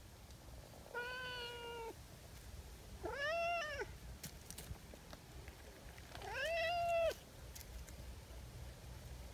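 Brown tabby cat meowing three times, each meow about a second long and arching up and down in pitch, the last the loudest.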